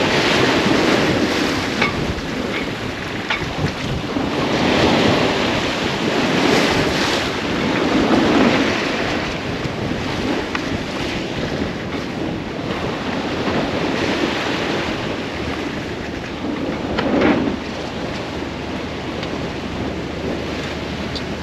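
Waves washing past a sailboat under sail, with wind buffeting the microphone, surging and easing every few seconds. The sound drops a little about seventeen seconds in.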